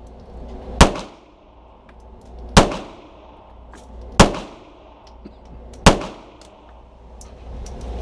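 Four handgun shots fired at a steady pace, about a second and a half to two seconds apart, each with a short echo off the walls of an indoor shooting range.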